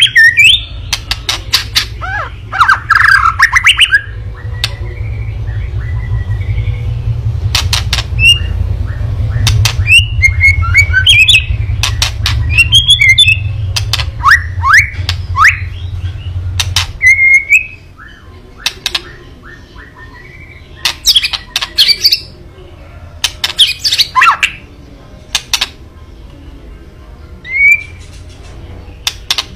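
White-rumped shama (murai batu) giving harsh, crackling 'kretekan' calls: rapid rattling clicks in irregular bursts mixed with short whistled notes. This is the shama's agitated, aggressive call, used to provoke other shamas. A low hum runs under the calls until about two-thirds of the way through.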